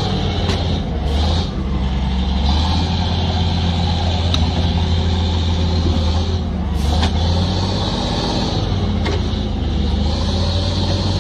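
Heavy diesel machinery engine running steadily under load, with a few sharp metallic clicks.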